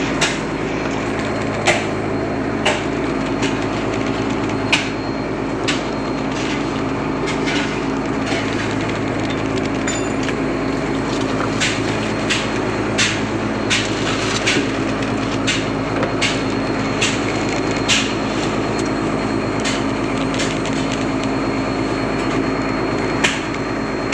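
Fishing boat's engine running with a steady drone, with irregular sharp knocks and clacks about once a second.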